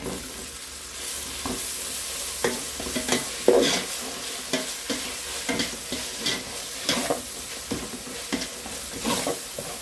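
Sliced onions, green chillies and ginger-garlic paste sizzling in ghee and oil in an aluminium pot, stirred with a slotted steel spatula that scrapes and knocks against the pot at irregular moments over a steady frying hiss.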